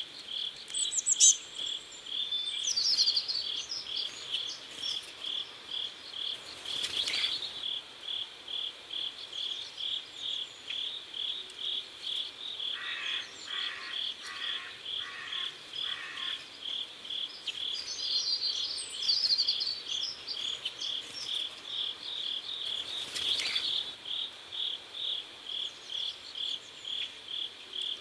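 Crickets chirping steadily in an even rhythm, about two pulses a second. Brief higher twittering calls come in twice, and a short run of lower pulsing calls comes in around the middle.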